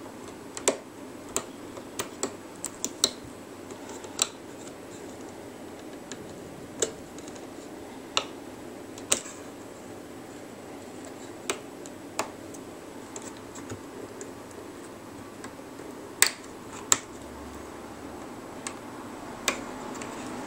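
A plastic hook and rubber loom bands clicking and snapping against the plastic pegs of a bracelet loom as the bands are lifted over the pegs and let go. The clicks are sharp and irregular, bunched in the first few seconds and then a few seconds apart, over a steady low hiss.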